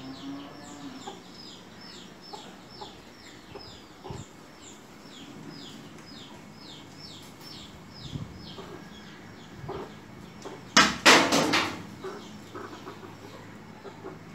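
Domestic hen clucking. Over it runs a series of short, high, falling peeps, about three a second, through the first half. A loud, harsh noise comes about eleven seconds in.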